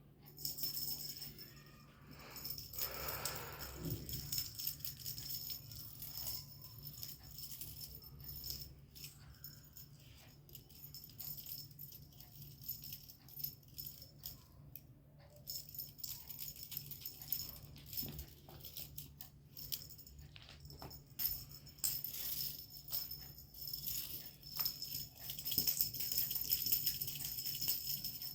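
Light jingling and rattling with many small clicks, over a steady low hum.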